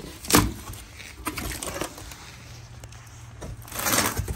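A cardboard shipping box being opened and handled: a sharp knock about a third of a second in, then the flaps scraping and rustling, busier near the end.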